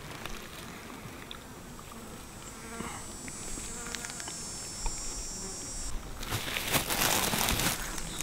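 An insect buzzing steadily at a high pitch for a few seconds. From about six seconds in, louder rustling of low blueberry bushes as berries are picked by hand through the foliage.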